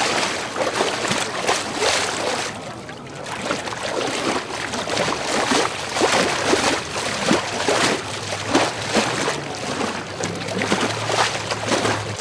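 Water splashing and sloshing as several people jump from a boat and wade through shallow water, a dense run of irregular splashes.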